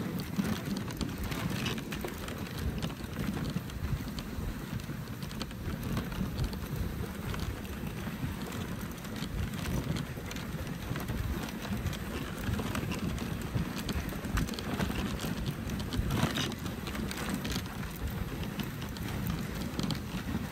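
Dog sled runners scraping steadily over a packed-snow trail, with a low rumble and a few sharper crunches as the sled rides along.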